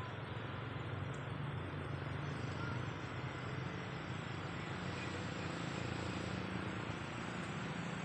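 Steady outdoor ambience: an even low rumble with a light hiss, no distinct events.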